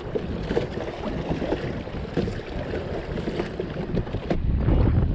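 Wind buffeting the microphone while small waves lap against a plastic kayak hull, with a few light knocks; the wind rumble grows louder near the end.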